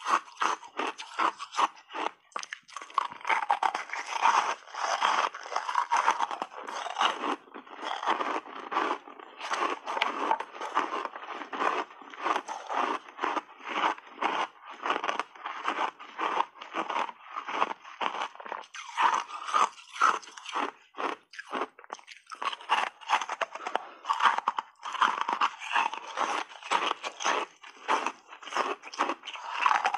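Close-miked crunching and chewing of refrozen ice chunks coated in passionfruit pulp: a rapid, nearly unbroken run of sharp crunches as the ice is bitten and ground between the teeth.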